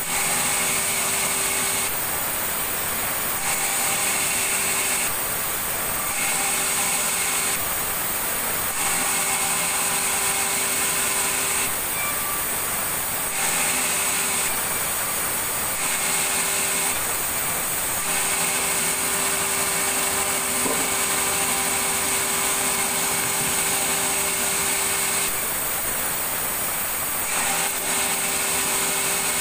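Sawmill saw running and cutting wood: a steady machine hum with a high hiss, its tone and hiss shifting every one to three seconds.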